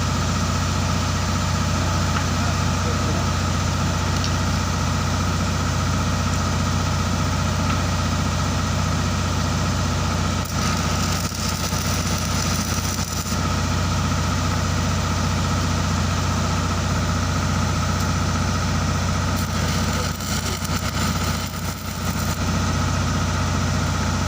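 Welding machine running with a steady low hum. The sound briefly changes and dips about ten seconds in, and again around twenty seconds in.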